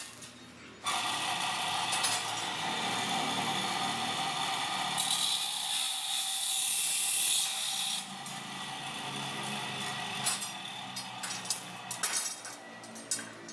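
Electric arc welding on a stainless-steel square-tube frame: a steady crackling hiss that starts suddenly about a second in and drops off at around eight seconds into scattered sputtering clicks.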